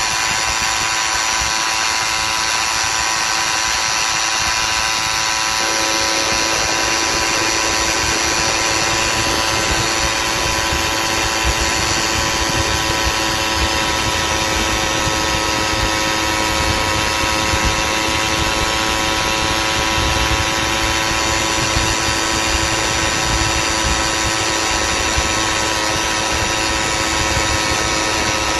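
Small motorized-bicycle engine running at steady high revs while cruising, its buzzing whine holding one pitch, with low wind rumble beneath that grows about five seconds in.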